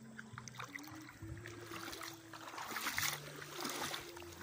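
River water rushing and gurgling around a phone held at the water's surface, with a low steady hum underneath. The splashing swells about three seconds in.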